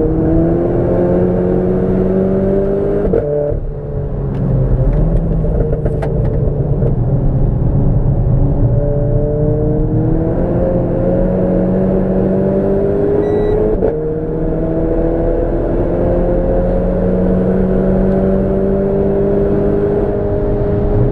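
Renault Clio 4 RS's turbocharged four-cylinder engine pulling hard, its revs climbing steadily. The pitch drops sharply about three seconds in with a brief dip in loudness, then climbs again, drops once more about fourteen seconds in as it shifts up, and keeps climbing.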